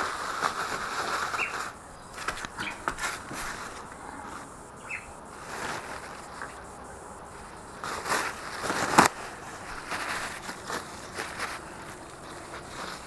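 Paper towel rustling and small clicks of engine parts being handled, with one sharp knock about nine seconds in. A few short, faint chirps, likely a bird.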